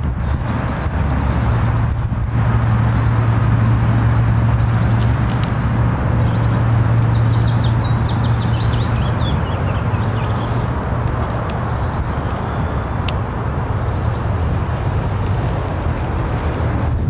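Steady low rumble and rush of outdoor background noise, with small birds chirping in short descending trills three times: about a second in, midway, and near the end.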